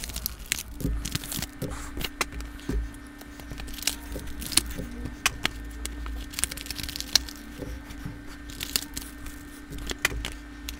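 Foil Yu-Gi-Oh! booster-pack wrappers crinkling and crackling as the packs are handled and laid one by one on a playmat, with irregular sharp clicks and taps.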